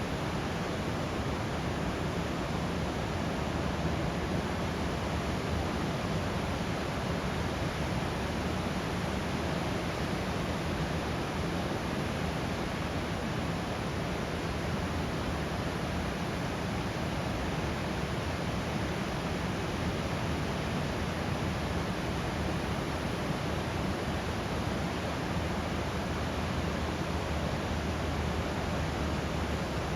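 Steady rushing of river water pouring over a waterfall, an even unbroken noise.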